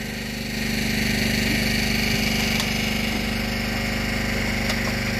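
Engine idling steadily aboard a fishing boat, an even, unchanging hum.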